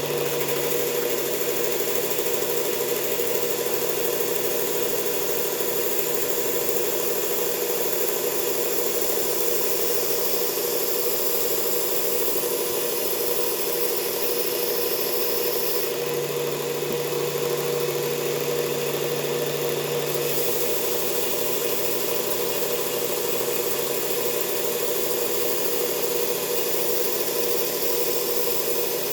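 Belt sander running steadily on a heavy coarse belt while a Ka-Bar knife edge is ground on it: a constant motor hum under an abrasive hiss that shifts slightly as the blade's contact changes.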